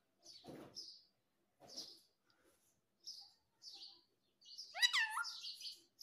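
Rose-ringed parakeet giving a run of short, high chirps spaced about a second apart. About five seconds in comes one louder call that rises and falls in pitch, followed by a stretch of harsh chatter.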